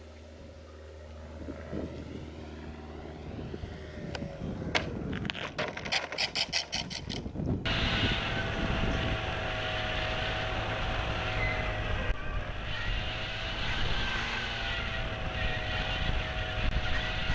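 Electric outrunner motor and propeller of a balsa Tiger Moth model biplane, heard from about eight seconds in through the camera mounted on the model: a steady whine that wavers slightly in pitch, over a rush of wind. Before that the model rolls on tarmac after landing, with a run of rattling clicks.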